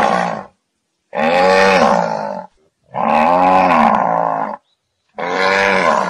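Zebu bull bellowing: a string of long, drawn-out moos with short pauses between them, each rising and then falling in pitch.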